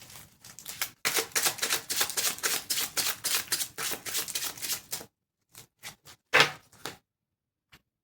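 Tarot cards being shuffled: a quick run of flicking and ticking for about four seconds, then a few separate card snaps and taps, one of them much louder.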